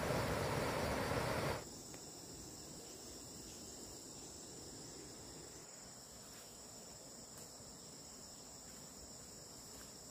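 Steady, high-pitched chorus of insects chirring, heard after a loud rushing noise cuts off abruptly about a second and a half in.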